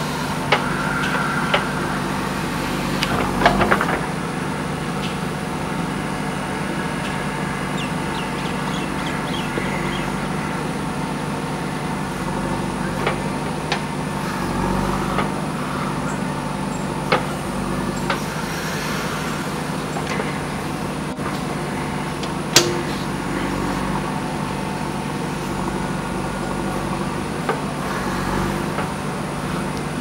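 JCB 3DX backhoe loader's diesel engine running steadily under load while the backhoe arm digs into and dumps loose earth. Occasional sharp knocks and clanks from the bucket and linkage working the soil; the loudest single knock comes about three quarters of the way through.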